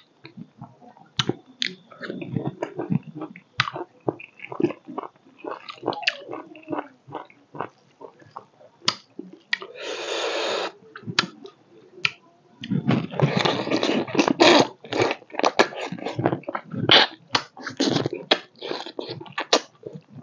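Close-miked chewing and biting of pork leg: irregular wet smacks and clicks, busiest in the second half. A steady rushing noise lasts about a second near the middle.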